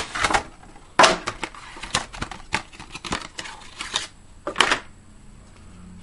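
Stiff clear plastic clamshell packaging crackling and snapping as a case fan is pulled out of it, with the sharpest snaps at the start, about a second in, and at about four and a half seconds. It falls quiet in the last second.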